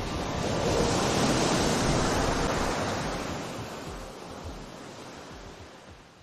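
Ocean surf: a steady wash of noise that swells about a second in, then fades out toward the end.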